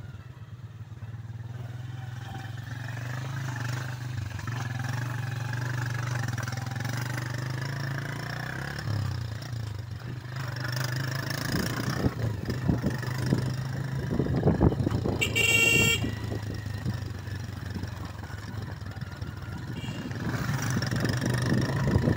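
Motorcycle engine running steadily as the bike is ridden over a rough dirt mountain track, with knocking and rattling from the bumpy surface growing from about halfway in. A short horn toot sounds about two-thirds of the way through.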